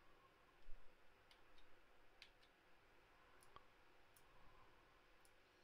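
Near silence, with scattered faint computer-mouse clicks and one soft low thump just under a second in.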